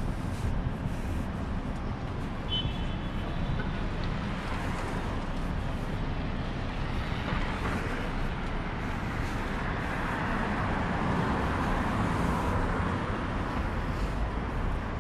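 City road traffic: a steady rush of passing cars, with one vehicle growing louder and fading away through the middle. A short high tone sounds about two and a half seconds in.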